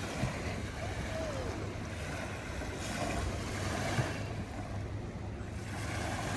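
Wind rushing over the microphone with lake water washing steadily in the background.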